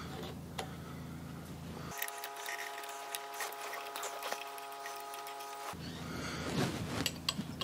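Light clicks and taps of screws and hand tools being handled while a chuck backing plate is bolted up, over a steady low hum.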